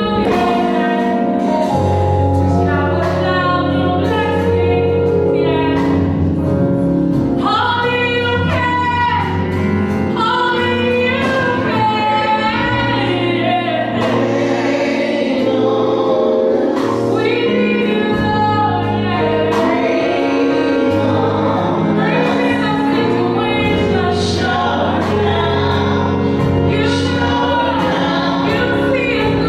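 Live gospel praise song, a group of women singing together in harmony into microphones, backed by keyboard and drum kit through the church PA.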